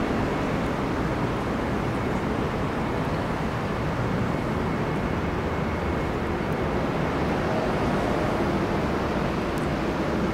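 TEM2 diesel shunting locomotive's six-cylinder diesel engine running steadily as it approaches hauling a freight train, a continuous low rumble.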